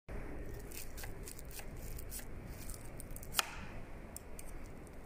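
A hand working an e-bike's handlebar grip and twist throttle, making faint handling noise and small plastic clicks, with one sharper click a little past halfway.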